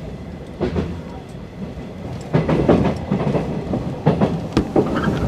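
JR 113 series electric train running over rail joints and points, heard from inside the car: a steady rumble with irregular wheel clacks that get louder and more frequent from about two seconds in.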